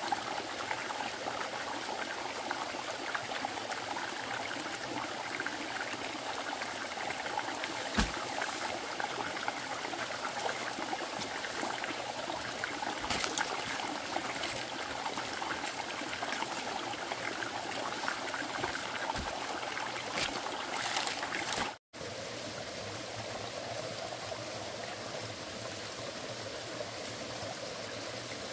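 Steady running water, flowing or trickling, with a few light knocks over it. The sound drops out for an instant about two-thirds of the way through and then carries on.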